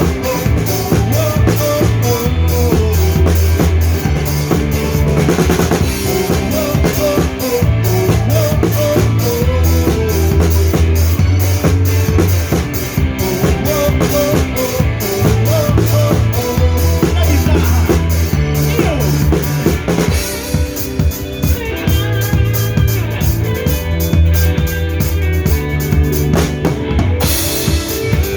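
Band playing a worship song live in an instrumental passage, led by a drum kit keeping a steady beat on kick and snare, over a walking bass line.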